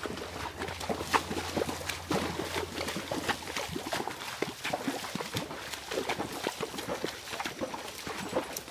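Horses walking through shallow water and mud: hooves splashing and squelching in an irregular run of steps.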